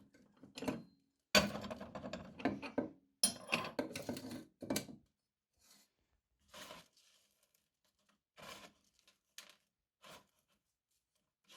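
Hard lollipop candy cracking and crunching in a meat grinder: a run of irregular crunches and clicks for the first few seconds, then a few faint scattered clicks.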